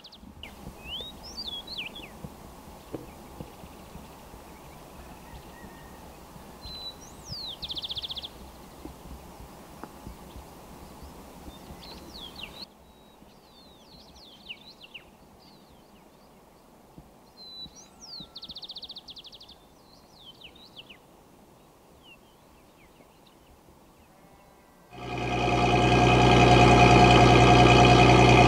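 Birds calling with short chirps, sliding whistles and two brief trills over a low steady hiss. About 25 seconds in, a 4x4 truck's engine comes in loud and steady, running at idle.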